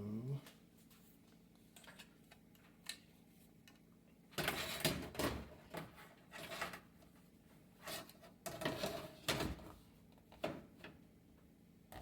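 Clicks, taps and rustling from handling plastic and metal parts of a range's control panel as a replacement button panel is fitted, in a few short bursts with scattered single clicks between.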